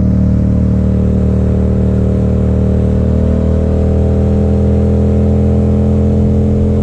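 Motorcycle engine running steadily while riding at road speed, heard from the rider's seat, with a steady rush of road and wind noise.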